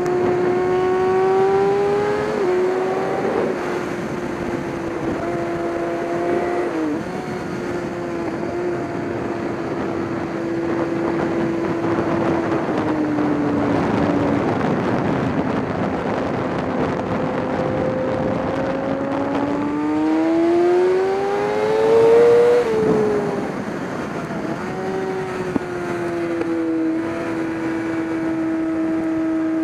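GT race car engine running hard. Its pitch holds steady, sags lower in the middle, then climbs to a peak a little over twenty seconds in and drops sharply, as at an upshift.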